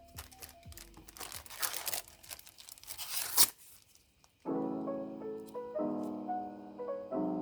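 Packaging being torn open and crinkled by hand in a few rough rips over a couple of seconds, the last rip the loudest. About a second later, piano music begins.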